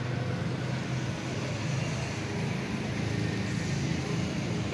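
Steady low mechanical hum over an even wash of background noise, with no distinct events.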